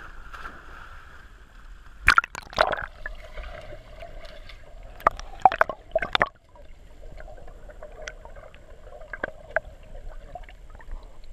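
Swimming-pool water splashing and gurgling as a dog swims, heard muffled through a camera's waterproof housing that dips under the surface. Clusters of sharp, loud knocks come about two seconds in and again around five to six seconds in, with steady muffled water noise between and after.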